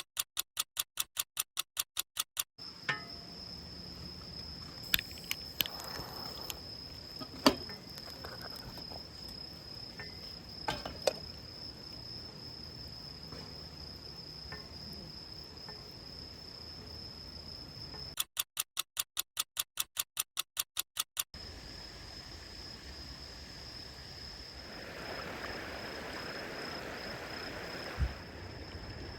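An insect trilling steadily at one high pitch, with a few sharp clicks and knocks. Twice a rapid train of evenly spaced pulses, about five a second, takes over for a few seconds.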